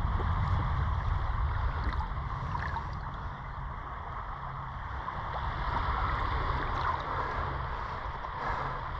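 Shallow water swishing and lapping around hands holding a kahawai submerged, the fish eased back and forth in the water to revive it before release. A steady low rumble runs underneath.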